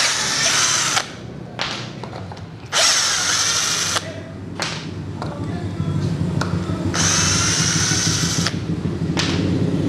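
Xiaomi Mijia Tonfon 12 V cordless drill driving small wood screws into a wooden block, in three short runs with pauses between them. The motor whines under load as each screw goes in.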